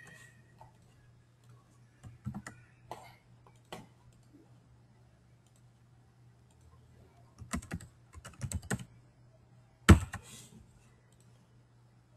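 Typing on a computer keyboard in a few short bursts, mixed with mouse clicks. One sharp click near the end is the loudest.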